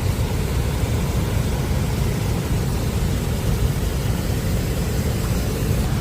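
Steady roar of Montmorency Falls: the waterfall's dense, even rush of falling water, heaviest in the low end.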